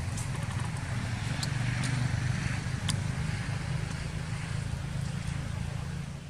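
A motor engine running steadily with a low hum, with a few faint, short, high clicks on top.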